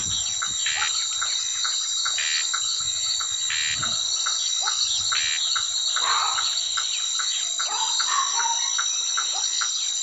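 Frogs croaking at night, many short calls repeating several times a second, over a steady high-pitched trill that runs throughout.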